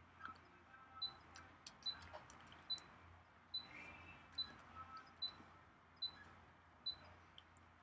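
Quiet room tone: a faint, high tick repeating evenly a little faster than once a second, over a steady low hum, with a few scattered light clicks.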